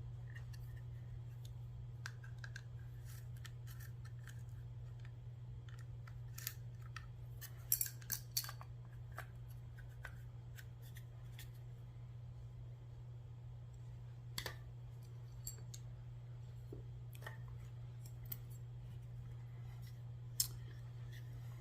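Scattered small clicks and taps of Girsan 2311 pistol parts being handled during disassembly. The loudest is a quick cluster of sharp clicks about eight seconds in, with single clicks near fourteen and twenty seconds. A steady low hum runs underneath.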